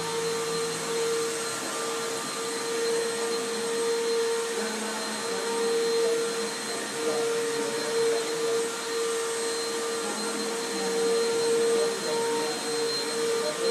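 Vacuum cleaner running steadily: a continuous rushing hum with one strong steady tone in it, its loudness wavering only a little.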